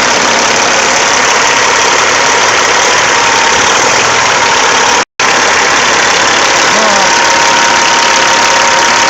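Caterpillar C15 inline-six diesel engine running steadily at close range, while its cooling system is drawing in air. The sound drops out completely for a split second about five seconds in.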